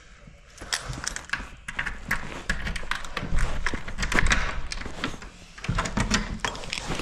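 Close handling noise of a handheld camera rubbing against the arm that carries it: rustling and a low rumble with many sharp clicks and knocks as a room door is opened and walked through.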